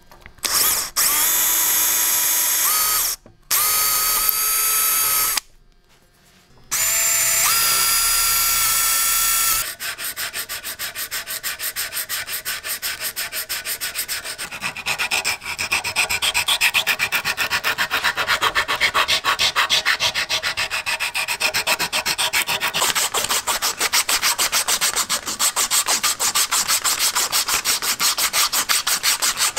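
A power drill bores through wooden screwdriver handle scales in three short runs during the first ten seconds, each with a steady motor whine. Then comes quick, even back-and-forth hand-sanding of the wooden handles with sandpaper, taking them down flush with the steel.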